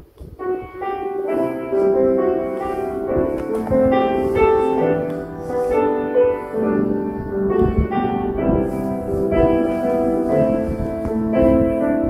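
Slow piano music with held chords, starting about half a second in, played as an accompaniment for silent prayer.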